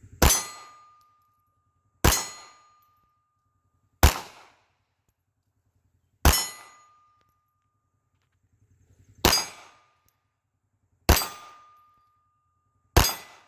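Seven pistol shots from a Taurus Spectrum .380 ACP micro pistol, fired slowly about two seconds apart. Several are followed by a short metallic ring as a steel target is hit.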